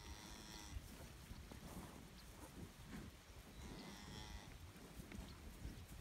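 Highland cattle mooing: two short calls about three and a half seconds apart.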